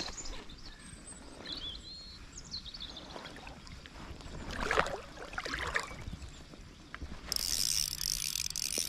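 Spinning reel being cranked: a steady high whirr of the reel's gears for the last second and a half or so as the lure is retrieved. A brief rushing swish comes about halfway through.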